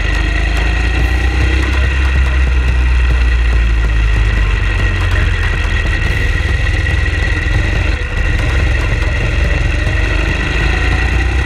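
A vehicle's engine running at speed under heavy wind rumble on a camera mounted on the vehicle. Loudness dips briefly about eight seconds in, and the engine pitch rises near the end as it accelerates.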